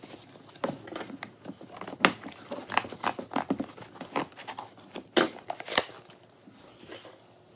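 Cardboard box being ripped open by hand and cut with scissors: irregular tearing, crinkling and snipping of paperboard, dying down near the end.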